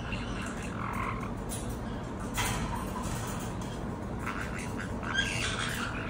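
A caique parrot giving short, raspy chirps and chatter while its head feathers are scratched, in a few scattered spells, over a steady low hum in the background.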